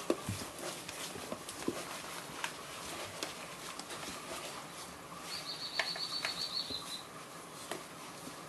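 Kishu Inu puppies suckling at their mother: a scatter of small wet clicks and newspaper bedding rustling. A short, high, fluttering trill sounds a little past halfway.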